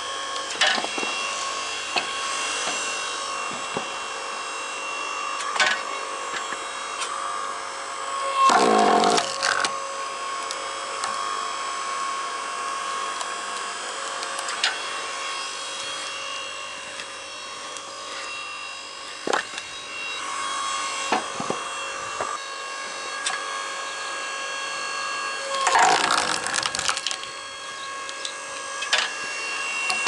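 Hydraulic log splitter running with a steady hum while its ram forces wet stumps apart; the wood creaks and cracks, loudest twice, about 9 seconds in and again about 26 seconds in, with scattered sharp knocks and clicks.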